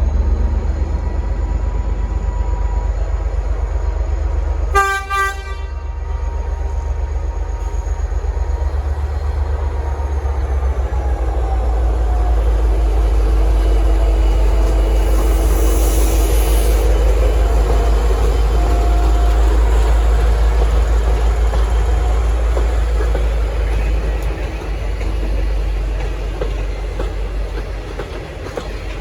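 V/Line N class diesel locomotive working hard as the train pulls away, a heavy, steady low rumble with a whine that slides in pitch. A single short horn blast sounds about five seconds in.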